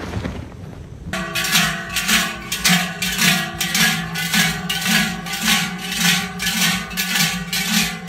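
Ringing metallic strikes repeating evenly, about two a second, beginning about a second in.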